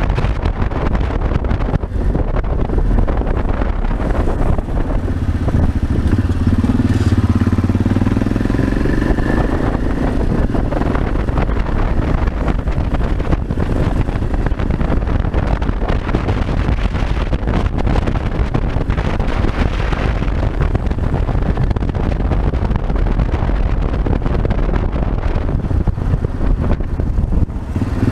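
Yamaha Ténéré 600's single-cylinder engine running while riding, under heavy wind noise on the bike-mounted camera's microphone. About five seconds in, the engine note comes through more clearly for several seconds, rising in pitch and then falling away.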